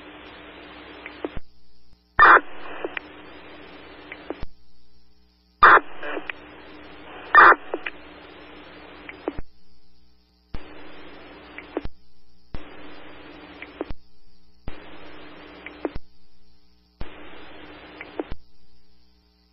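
Fire radio scanner audio: a string of keyed-up transmissions that carry only hiss and static, each one to four seconds long, cutting off to dead silence between them. Sharp squelch clicks come at about 2, 6 and 7.5 seconds.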